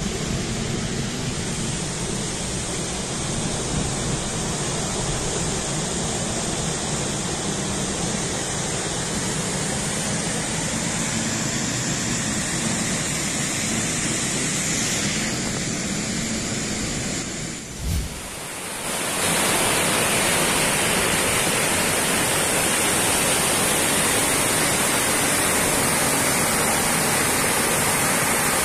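Water rushing over a small dam's weir and down onto rocks: a steady rushing noise. About two-thirds of the way through it dips briefly with a low thump, then returns louder and hissier.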